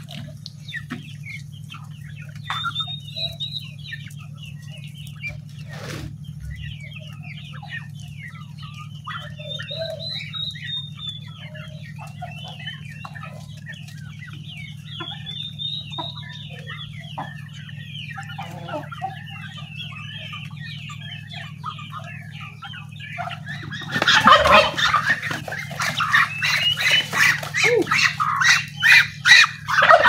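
A flock of chickens clucking and calling as they feed, with scattered short calls over a steady low hum. About 24 s in, the birds get much louder and busier close by.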